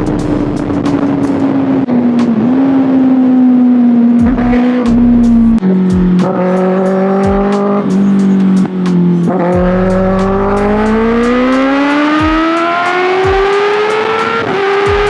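Kawasaki ZX-6R 636cc inline-four sportbike engine under way. Its note sags slowly and drops in pitch about six seconds in, holds low, then rises steadily through the last five seconds as the bike accelerates, with wind rushing over the mic.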